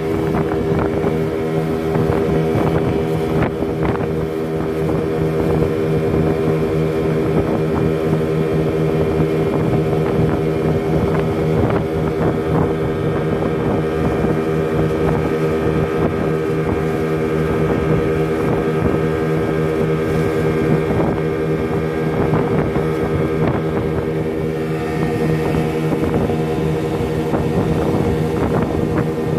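Johnson outboard motor running steadily at cruising speed, driving a small boat across open water.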